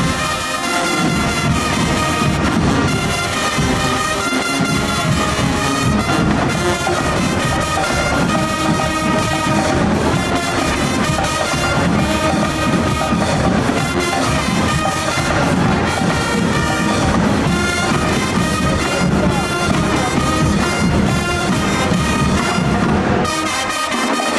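High school marching band playing loudly, its brass section of trumpets and trombones carrying the tune.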